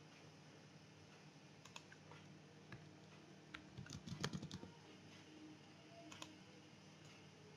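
Faint computer keyboard typing and mouse clicks: a short run of keystrokes about four seconds in, with single clicks before and after. A faint steady hum runs underneath.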